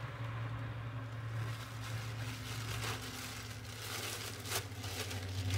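A plastic parts bag crinkling and rustling as hands rummage through it, with a light click about four and a half seconds in, over a steady low hum.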